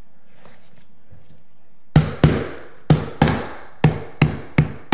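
Claw hammer tapping a luxury vinyl plank into place, its click-lock joint being knocked home. The taps start about two seconds in and come in quick pairs, about eight sharp strikes in all.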